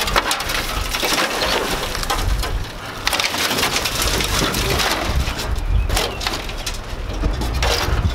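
Rusted sheet metal, wire and debris from a 1932 Ford BB truck crunching, scraping and rattling as it is pulled and shoved apart by hand, a dense run of crackles and clanks.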